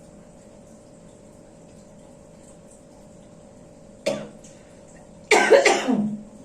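Coughing from a patient being treated for a complicated cough: one short cough about four seconds in, then a louder, longer cough about a second later that trails off lower in pitch.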